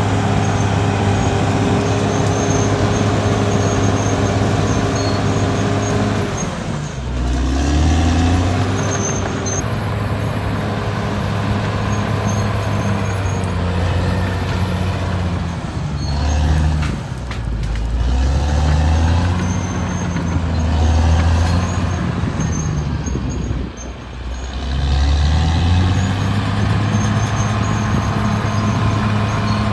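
Caterpillar D6R XL bulldozer's diesel engine running at steady revs, then falling and picking back up in pitch several times over the middle of the stretch, before settling back to a steady run near the end.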